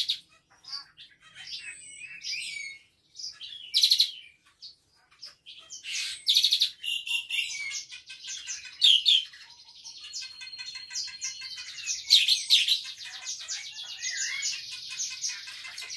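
Caged Asian pied starling (jalak suren) singing unprompted: a varied string of chirps and whistles mimicking other songbirds, including cililin calls. In the second half this becomes a fast, rattling run of rapidly repeated notes.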